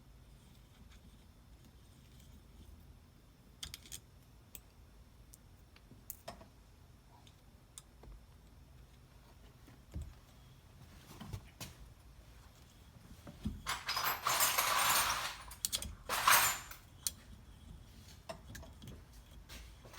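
Scattered light metal clicks and taps as an Allen key works on the steering wheel hub bolts. After about 14 seconds comes a loud metallic jangling rattle of loose hardware lasting about two seconds, then a shorter one.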